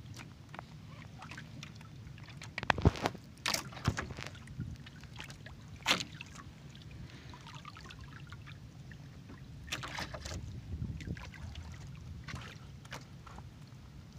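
Small fishing boat on the water: a steady low rumble, with scattered knocks and clicks as fish and tackle are handled on the wooden deck, the sharpest about three seconds in and near six seconds.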